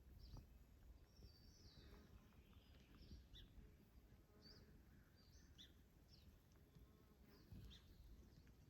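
Faint, scattered chirps of small birds, short high calls every half second or so, over a low, even background rumble.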